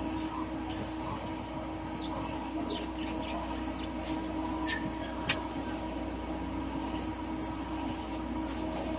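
A steady mechanical hum with small birds chirping briefly now and then, and one sharp knock about five seconds in.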